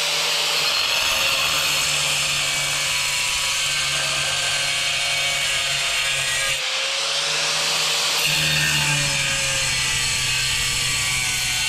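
Angle grinder grinding a round hole through a hard ceramic tile, running steadily with a short dip in the cut a little past halfway.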